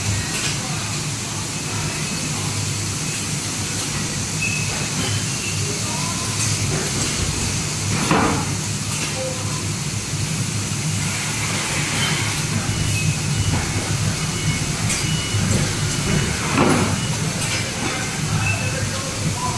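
Drop-down carton packing machine and its conveyor running with a steady mechanical hum, broken by two short louder bursts about eight seconds apart, near the middle and again near the end, as the machine cycles.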